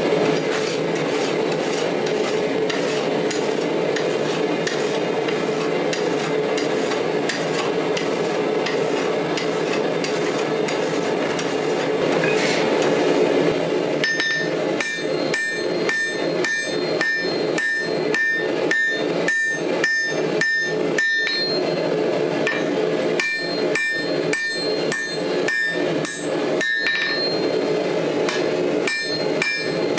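Steady rushing noise for about the first half, then a hammer striking steel on an anvil, about two ringing blows a second, in runs with short pauses. This is a hand-forged blade being hammered out.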